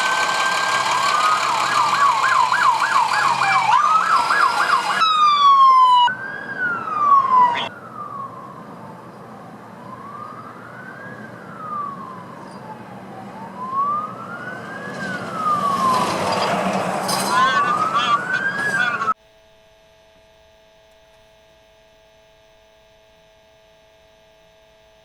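Emergency vehicle sirens: several sound together at first, wailing and yelping over each other, then a single siren wails slowly up and down, with a brief fast warble near the end. The sirens cut off suddenly about three quarters of the way through, leaving a faint steady electrical hum.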